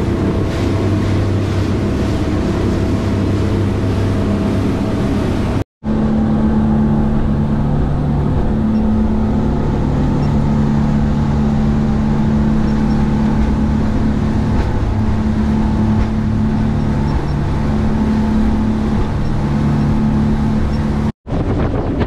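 Engines of a Hydra-Sports 28 Vector Express boat running under way at a steady cruise: a loud, even drone with a few fixed low tones.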